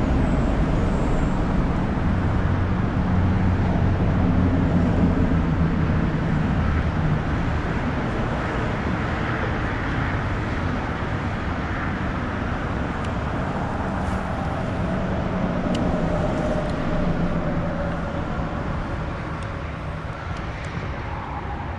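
Road traffic on the highway bridge overhead: a steady rumble of tyres and engines that swells and eases a little as vehicles pass.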